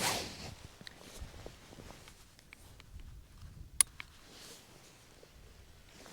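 Quiet handling noises: a brief rustling burst at the start, scattered light clicks, and one sharp click a little under four seconds in.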